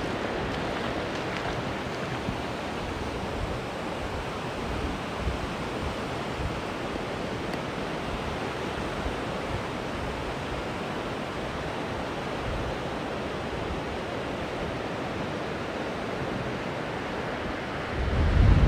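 Sea surf washing onto a beach, a steady, even hiss of water.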